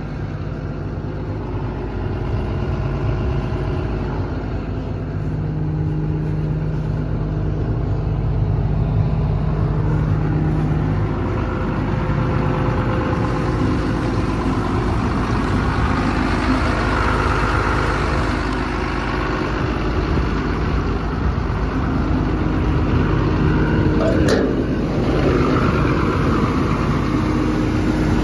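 Doosan 255LC-V excavator's diesel engine running steadily at a low idle. A single sharp click near the end.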